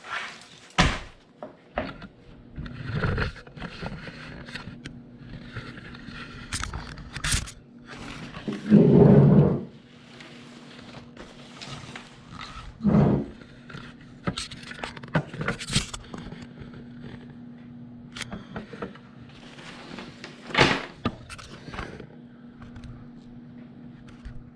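Handling noise from a Cordura fabric tool roll being moved about: irregular scrapes, rustles and clicks, with a louder thump about nine seconds in and sharper knocks near thirteen and twenty-one seconds. A faint steady hum runs underneath.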